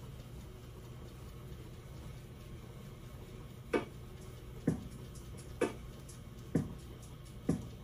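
Salon hair steamer running with a steady low hum and hiss. From about four seconds in, soft thumps repeat evenly about once a second.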